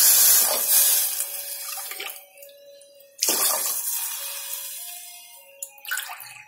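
Water poured from a tumbler into an aluminium pressure cooker over the hot ghee-fried tempering. It comes in two pours: one fading over the first couple of seconds, and a second starting suddenly about three seconds in, loud at first and then dying away. A few light knocks follow near the end.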